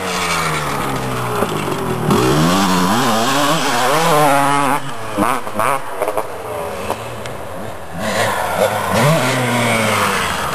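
Two-stroke 250 motocross bikes revving on the track, their engine pitch repeatedly rising and falling with throttle and gear changes.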